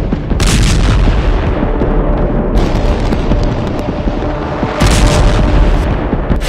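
Explosions booming over a continuous deep rumble, with sharp blasts about half a second in and again near five seconds, under a dramatic music bed.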